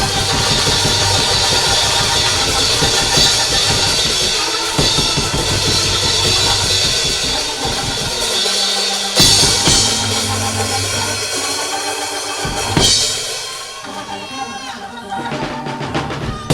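Loud church band music driven by a drum kit with bass drum and snare, with cymbal crashes about nine and thirteen seconds in. It quietens near the end.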